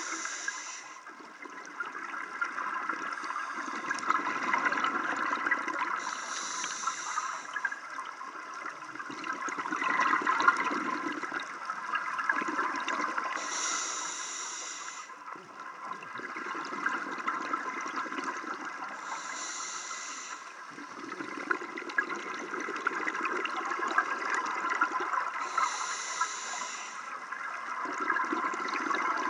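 A scuba diver breathing through a regulator: a short hiss of inhalation about every six seconds, each followed by the bubbling rush of the exhaled breath, over a steady underwater crackle.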